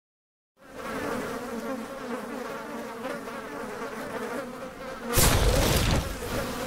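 Swarm of flies buzzing, cut by a loud explosion about five seconds in that dies away.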